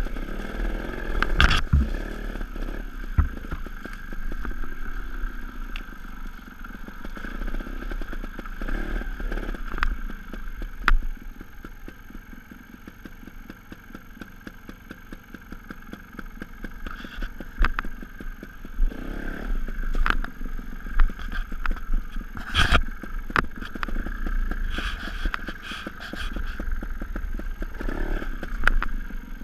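A Sherco 290 ST trials motorcycle's single-cylinder two-stroke engine is worked on and off the throttle at low speed, with revs rising and falling. It drops to a quieter putter about halfway through. Sharp knocks and clatters break in several times, the loudest just after the start and a little past two-thirds of the way.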